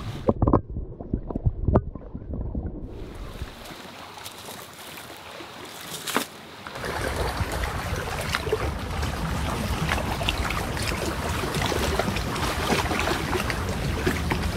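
Muffled underwater sound with a few sharp knocks as glass beer bottles are set down among stones in the shallows. From about three seconds in it gives way to open-air noise, quieter at first, then from about seven seconds a steady hiss of wind and lapping water with small crackles.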